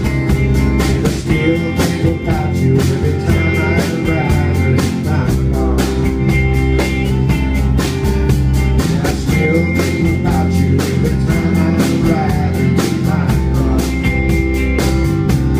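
Live band music: an acoustic guitar strummed over a drum kit keeping a steady beat.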